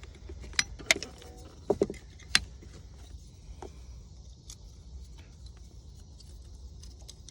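Small metal and plastic parts of a boat's remote-control box clicking and clinking as they are handled and fitted: about five sharp clicks in the first two and a half seconds, then only faint handling ticks over a steady low hum.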